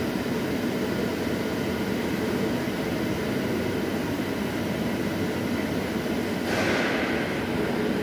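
Steady background hum and rumble of workshop machinery or ventilation, with a short hiss about six and a half seconds in.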